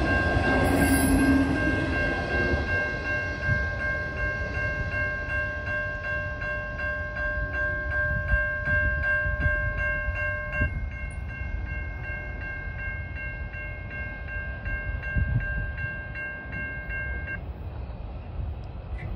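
Grade-crossing warning bell ringing in a quick, steady rhythm while the last cars of a freight train rumble past and fade away. Part of the bell's tone drops out partway through, and the bell stops a couple of seconds before the end as the crossing clears.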